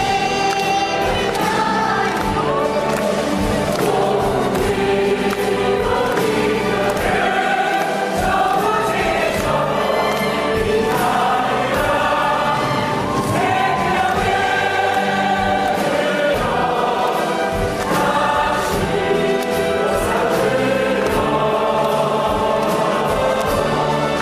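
A musical-theatre cast singing together in chorus, with instrumental accompaniment.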